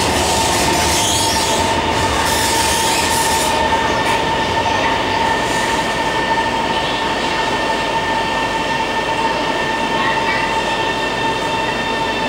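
Metro train's Siemens IGBT-VVVF traction equipment whining inside the car, several steady tones that slowly fall in pitch as the train slows for a station, over the constant running noise of the wheels on the track.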